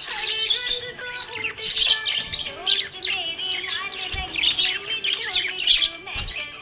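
Budgerigar chirping and warbling, a fast run of short notes that rise and fall in pitch.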